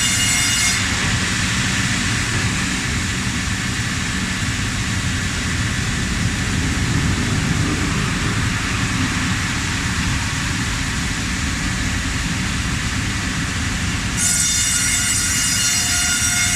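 Vertical band saw running with a loud, steady mechanical noise. A high whine over it drops away about a second in and comes back near the end.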